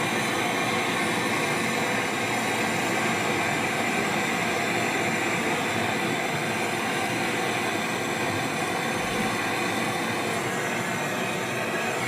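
Steady, unchanging machine noise, an even rushing hum with no rhythm or breaks.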